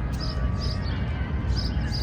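City park ambience: a steady low rumble of distant city traffic, with small songbirds chirping in short high notes several times.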